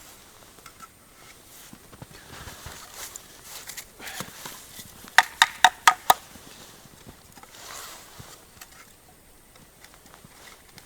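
Firewood being handled and laid for a fire: shuffling and rustling, with a quick run of five sharp knocks about five seconds in.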